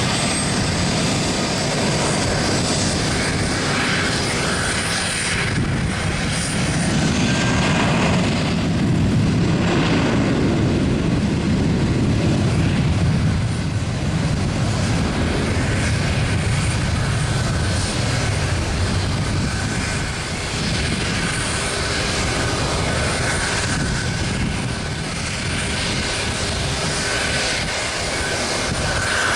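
Airplane engines at takeoff power during a takeoff roll: a steady, loud roar that builds to its loudest about ten seconds in, then eases slightly.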